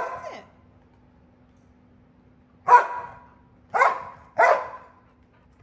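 A dog barking: a bark right at the start, then three short barks at about three, four and four-and-a-half seconds in, with a faint steady hum underneath.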